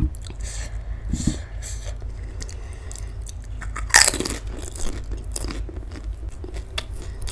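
Close-miked eating of panipuri. A crisp puri shell is cracked open by a finger at the start, then comes a loud crunching bite into a whole puri about four seconds in, followed by a run of small crisp chewing crunches.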